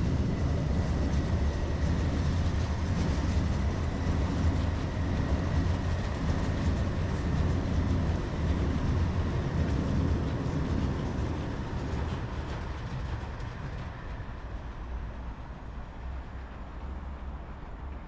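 Electric commuter train (a Moscow Central Diameter suburban multiple unit) running past, a heavy rumble with wheels clattering on the rails and a faint steady whine. It fades away over the last several seconds as the train pulls off into the distance.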